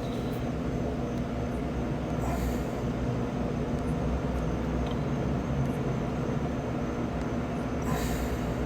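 Steady low hum of a vehicle, heard from inside it, with a couple of brief soft hisses.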